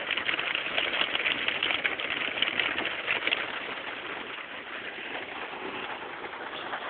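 Rain falling steadily, a dense patter and hiss that is heavier for the first few seconds and then eases off.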